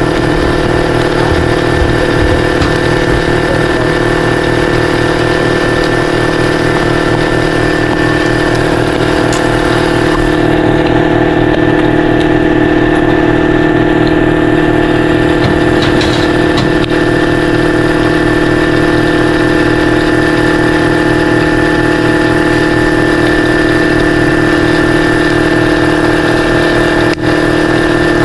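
A motor-driven machine running steadily with an even, low pulse and a constant pitch that does not change. A few faint metal clicks from hand tools can be heard over it.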